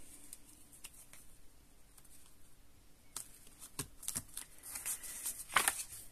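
Hands pressing and smoothing glued cardstock on a craft mat: soft paper rustles and a few light taps, the loudest near the end.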